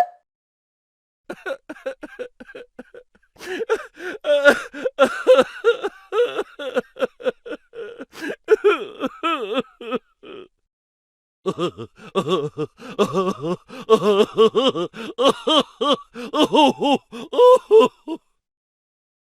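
A laughing sound effect: two long fits of rapid, pulsing laughter, separated by a short pause about ten seconds in.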